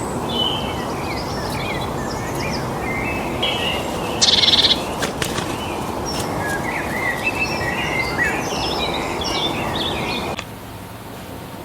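Many birds chirping and calling over a steady background rush. A loud, dense call stands out a little after four seconds in. About ten seconds in, the chirping and the rush stop abruptly at an edit, leaving a quieter hiss.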